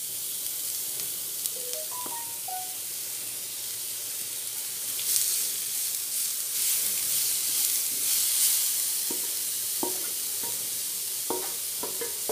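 Grated beetroot sizzling as it is scraped off a plate with a wooden spatula into hot oil in a nonstick pan. The hiss swells about five seconds in and again around eight seconds.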